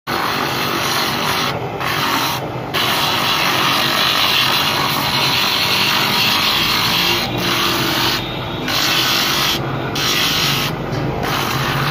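Small electric drum sander grinding a curved wooden handle blank pressed against its spinning sanding drum: a loud, steady rasping hiss that drops away briefly about six times.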